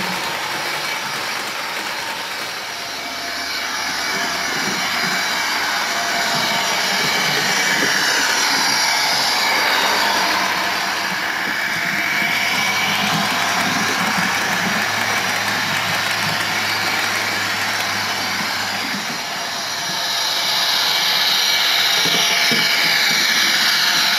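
Sound decoder's diesel locomotive engine sound for a model NIR class 111, played through the model's small loudspeaker as it runs along the track. It is steady and grows louder twice as the model comes nearer.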